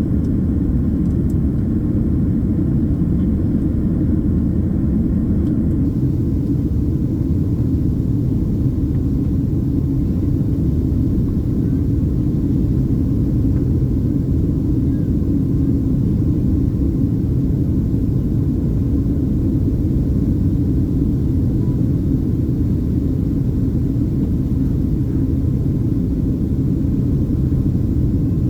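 Steady low cabin roar of a Boeing 767-300ER in flight, the engines and airflow heard from a seat in the rear main cabin.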